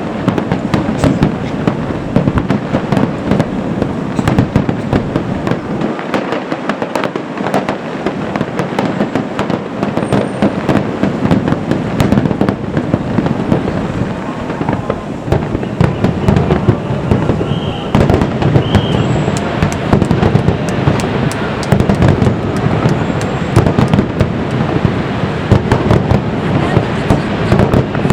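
Aerial fireworks bursting in rapid, continuous succession, with overlapping booms and crackles and no pause.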